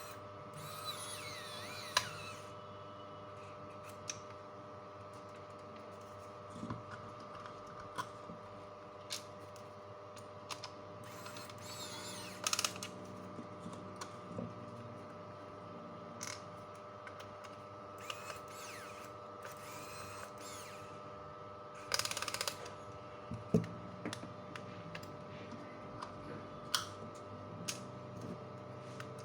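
Scattered clicks, taps and brief scraping from tools and small parts being handled during electronics repair work, over a steady electrical hum made of several fixed tones.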